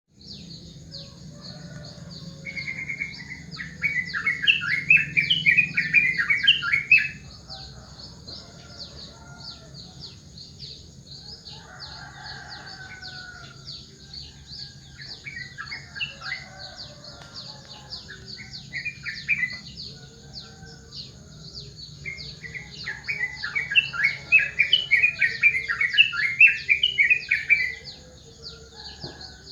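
Yellow-vented bulbul (trucukan) singing: two long runs of loud, rapid warbling notes, one near the start and one near the end, with shorter phrases in between. A continuous high-pitched chirring runs underneath throughout.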